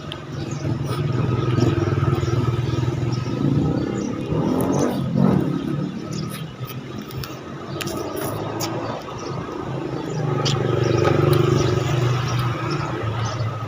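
Road traffic: one vehicle's engine rising as it approaches and passes about five seconds in, then a second vehicle passing about ten to thirteen seconds in.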